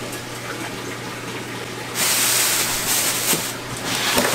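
Steady low hum of aquarium equipment. About two seconds in, a loud rushing noise starts suddenly and lasts over a second, followed near the end by knocks and rustling as bags are handled in a styrofoam shipping box.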